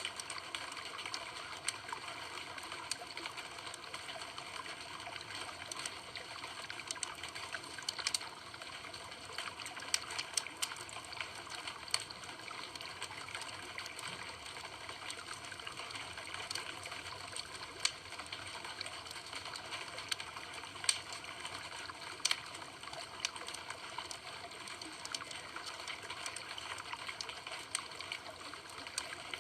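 Campfire burning, a steady hiss with irregular crackles and sharp pops from the burning wood.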